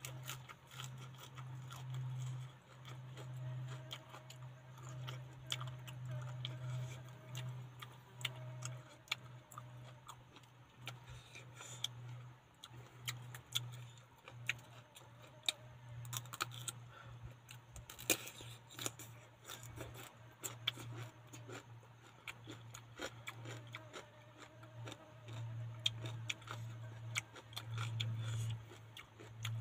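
Close-up eating sounds: chewing and crunching raw vegetables, a cucumber among them, as many small crisp clicks and crunches, over a steady low hum.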